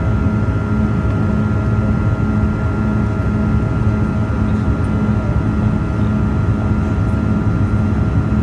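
Steady jet drone heard inside the cabin of a Bombardier CRJ-200 climbing after takeoff, from its two rear-mounted GE CF34 turbofans at climb power. A deep hum with a slow, even throb and a thin steady whine above it.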